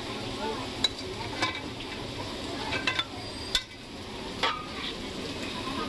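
Sauce sizzling in an aluminium wok on a gas stove, with a metal spoon clinking several times against the wok and a bowl as food is scooped out.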